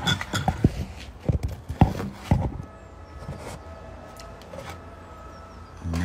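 Knocks and clicks of a handheld phone being handled and propped in place, about half a dozen sharp taps in the first two and a half seconds. After that only a faint steady hum is left.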